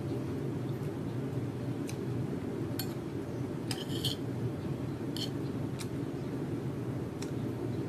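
A metal spoon and fork clink and scrape against a ceramic plate several times, with a cluster of clinks about four seconds in. A steady low hum runs underneath.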